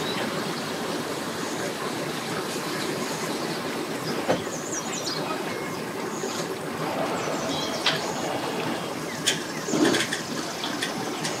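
Steady background noise of a busy boat ramp, with a few short knocks and clatters: one about four seconds in, one near eight seconds, and the loudest toward the end.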